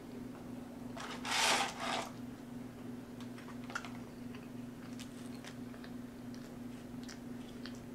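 Burger King paper fry carton rustling as the fries are tipped out onto the tray, a burst just under a second long about a second in, followed by faint scattered clicks and taps of food being handled, over a faint steady low hum.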